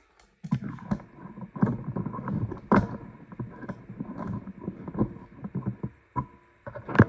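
Handling noise of a camera and tripod being moved and adjusted close to the microphone: low rubbing and rumbling, broken by frequent clicks and knocks, with one sharper knock about three seconds in.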